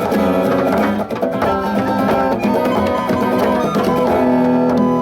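Instrumental music with percussion and no singing, settling into a held chord near the end.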